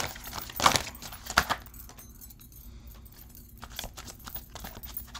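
A tarot deck being shuffled and its cards handled: a dense run of quick card flicks over the first second and a half or so, then scattered light clicks and taps.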